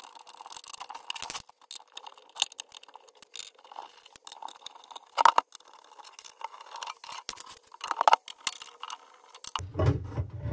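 Screws being undone and the sheet-metal top cover of a Glitter 811H spot welder's case handled and lifted off: scattered light clicks, scrapes and rattles of metal. Two sharper clacks come about five and eight seconds in. A low, fuller sound starts near the end.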